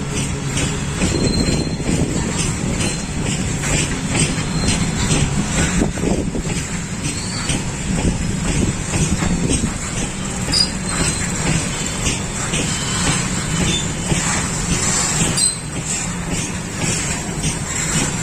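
Train passing close by: a steady, loud rumble of wagons running on the rails.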